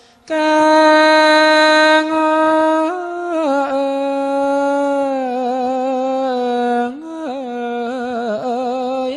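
Thai royal barge chanting (he ruea): one voice singing long drawn-out notes. A high held note steps down about three seconds in to another long note, followed by shorter wavering notes near the end.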